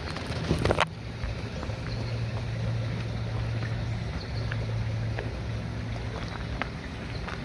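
Steady rushing water of a mountain river, with a brief loud scrape or rustle about half a second in and a few faint ticks.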